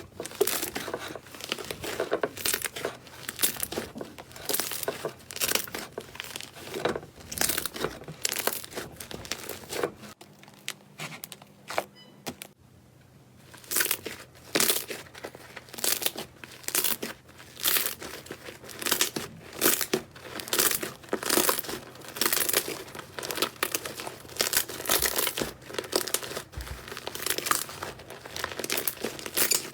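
Slime being squeezed, pressed and pulled by hand close to the microphone, making a dense run of sticky clicks and pops, with a brief lull about ten seconds in.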